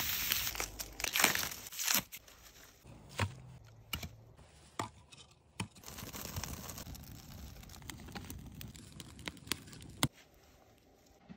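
Wood fire of split kindling crackling, with irregular sharp pops and snaps over a steady hiss; the hiss is loudest in the first two seconds.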